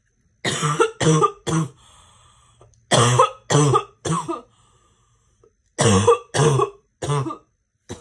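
A girl's barking cough in a fit: three bursts of three coughs each, a few seconds apart.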